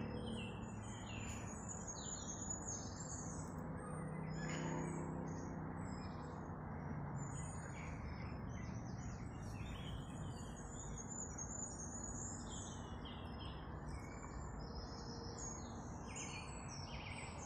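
Several small birds singing and chirping, with many short, high notes overlapping throughout, over a steady low background hiss.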